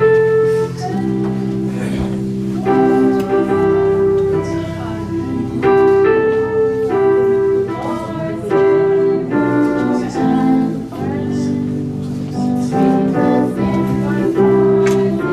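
Slow gospel song: held sung notes over a sustained keyboard accompaniment.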